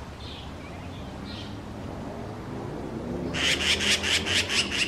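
Faint bird chirps, then about three seconds in a loud rapid run of about ten harsh calls, some seven a second, from a magpie mobbing a cat.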